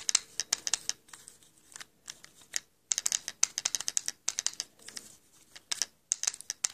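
Pinewood derby wheel tapped and spun on its axle with dry graphite in the bore: the graphite flakes crunching as they are worked into the bore, heard as clusters of fine, irregular clicks.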